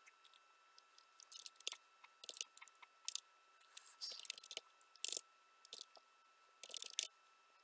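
Computer keyboard typing: irregular short bursts of key clicks with pauses between them, while commands are typed into a command prompt.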